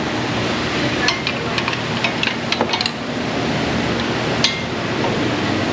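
Light metallic clinks and taps of tools and brake caliper hardware being handled, a scatter of short clicks with a sharper clink near the end, over a steady background hiss.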